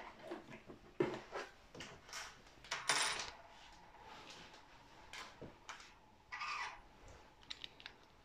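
Small metal accessories, an Allen key and a short metal rod, being set down and handled on a table: scattered light clinks and clicks, the loudest about three seconds in. Plastic packaging rustles near the end.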